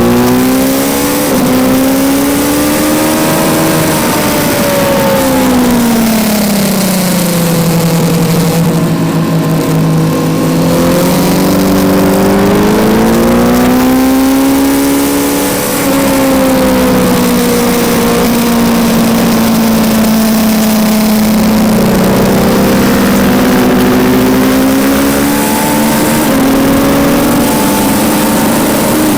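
Onboard sound of a 2019 Kawasaki Z900's inline-four engine under hard riding, its revs climbing and falling smoothly again and again as it accelerates and slows, with a short dip in level about fifteen seconds in. Steady wind rush over the microphone runs underneath.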